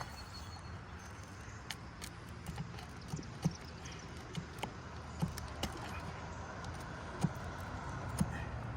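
Irregular light clicks and taps of a hand tool working roofing nails loose from under asphalt shingles, over a steady low rumble.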